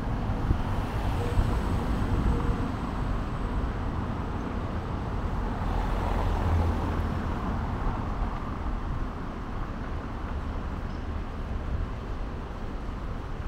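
Road traffic noise: a steady hum of passing vehicles, one swelling past about six seconds in.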